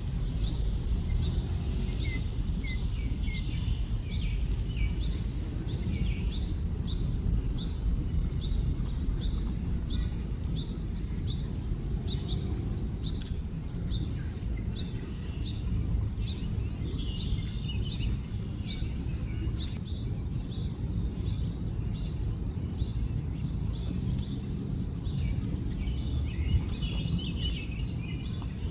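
Small birds chirping: a long run of short, evenly repeated high chirps, with busier twittering phrases now and then, over a steady low rumble of outdoor background noise.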